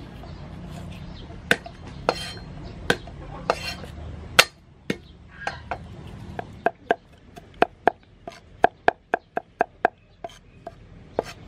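Cleaver chopping garlic on a wooden chopping block: a few scattered knocks at first, then, past the middle, a quick, even run of chops about four a second.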